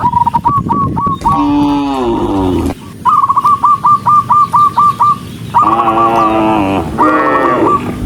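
Animal calls: a quickly repeated chirping call, alternating with longer calls that slide down in pitch.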